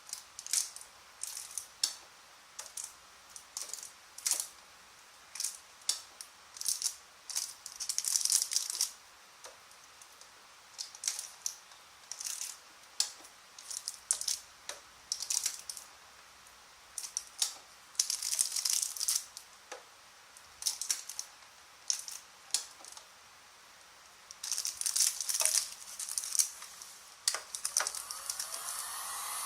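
Plastic bag film crinkling and sharp plastic clicks in irregular bursts as a hand-press bag heat sealer is worked. Near the end a steady hiss starts to rise.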